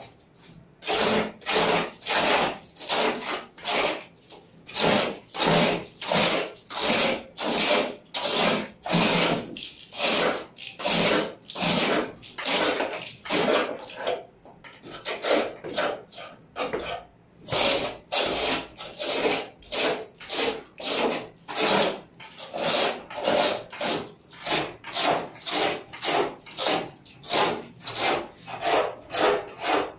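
Hand scraping with an abrasive tool worked back and forth, about two strokes a second, with a couple of brief pauses.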